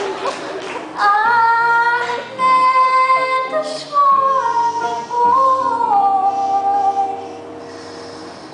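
A young woman singing in a high voice, holding long notes that glide up and down, over acoustic guitar accompaniment; the music drops quieter near the end.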